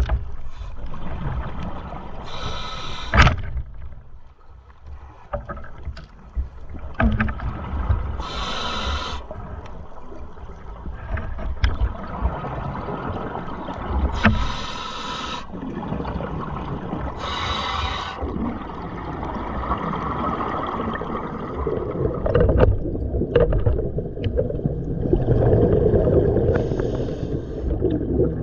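Underwater sound picked up by a diver's camera: a steady low rumble of water, with four hissing breaths through a scuba regulator spaced a few seconds apart. The churning grows louder near the end as the diver nears the surface.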